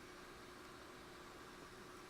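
Near silence: steady room tone with a faint even hiss and a low steady hum.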